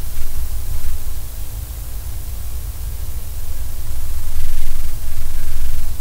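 Laser-vibrometer pickup of a red ramshorn snail feeding on the inside of a small glass light-bulb globe: faint scraping bites of its rasp-like tongue, a few near the end ringing briefly at the glass globe's own resonance. Under it runs a steady hiss and a low rumble.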